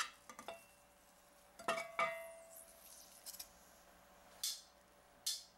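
Metal tongs and a plate clinking as a roast is lifted out of a cast iron skillet and set down: two knocks close together, the second ringing briefly, followed near the end by two short scrapes.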